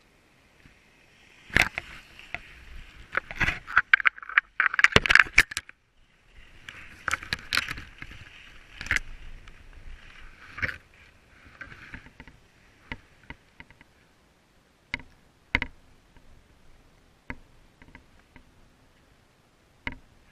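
Skis scraping and hissing over snow in long runs, broken by sharp clicks and knocks. About a second and a half in the scraping starts; it dies away after about twelve seconds, leaving scattered knocks.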